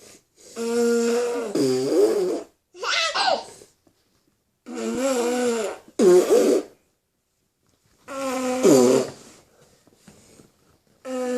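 A run of about six fart noises, each about a second long: a held, buzzy pitched tone that wobbles and bends down near its end, with short silent gaps between them.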